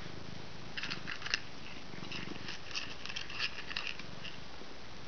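Cat crunching pieces of dry kibble: short clusters of crackly chewing about a second in and again through the middle, over a low steady purr.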